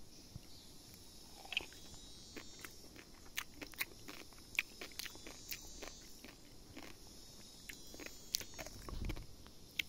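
A person biting into and chewing a ripe wild fig (Ficus auriculata), a string of irregular short clicks close to the microphone.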